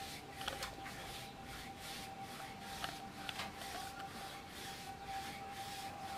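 Paintbrush strokes on the slats of a louvred window: soft, repeated rubbing swishes. A thin steady tone runs underneath.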